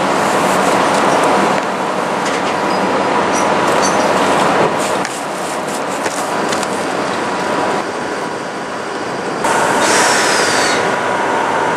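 Steady mechanical noise of a locomotive and sleeper train standing at the platform during coupling, with light metallic clicks and clanks from the coupling work. Near the end the noise steps up and a steady tone comes in.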